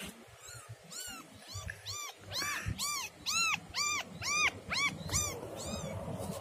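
Newborn kitten mewing in a rapid run of short, high calls, each rising and falling, about two a second, loudest in the middle.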